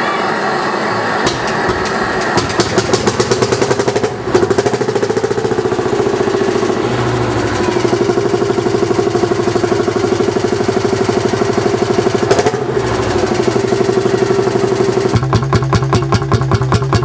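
Lanz Bulldog tractor's single-cylinder hot-bulb two-stroke engine running with an even firing beat that sets in about a second in and quickens. The beat changes near four seconds and again near twelve, and from about fifteen seconds the firing pulses are strongest.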